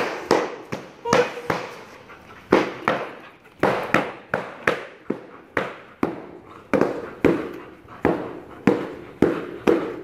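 Repeated sharp cracks of a foam-covered distraction stick being struck, about two a second, each with a short echo from a metal roof.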